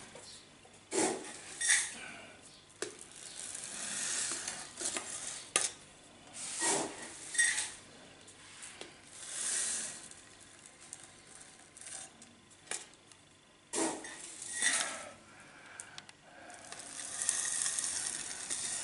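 Granular bonsai substrate, a 70-30 mix of akadama and kiryu grit, being poured and scooped into a pot. It makes irregular gritty rattling pours with short pauses and small clicks between.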